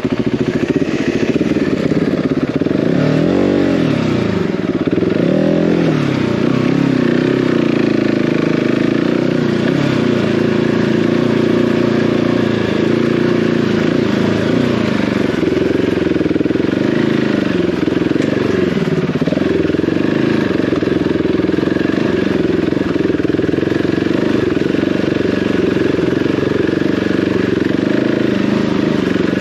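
Single-cylinder enduro motorcycle engine running under load on a rough off-road track, its revs rising and falling repeatedly as the rider works the throttle.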